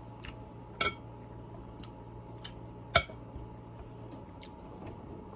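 A metal fork clinking against a plate while eating noodles, a few light clicks with one sharp clink about three seconds in, over a steady low hum.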